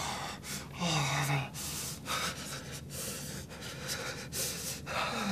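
A young man breathing heavily in short, ragged gasps, about two a second, with a brief low groan about a second in. It is an exaggerated, acted show of feverish distress.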